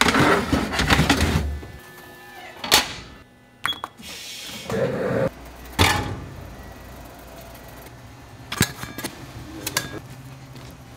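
Kitchen work sounds: a short stretch of clattering noise at the start, then several sharp knocks and clacks of utensils and containers, spaced a second or more apart.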